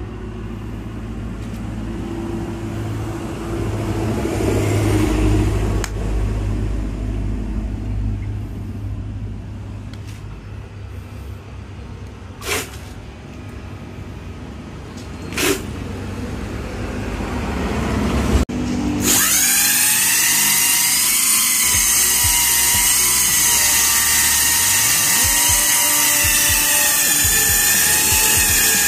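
Brushless electric motor (Flipsky 6384 190KV) driving the scooter's rear wheel through a belt, starting abruptly about two-thirds of the way in and then running at high speed with a loud, steady, high-pitched whine. Before it there is a low hum and two short sharp sounds.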